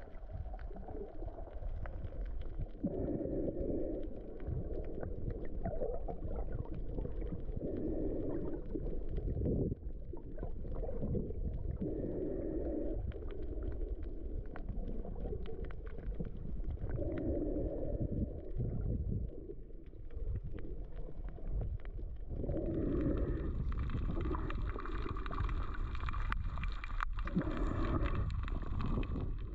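Muffled underwater sound from a camera held below the surface on a drift snorkel: a low, steady rush of moving water with swells every few seconds. A higher hiss with a faint whine joins for the last several seconds.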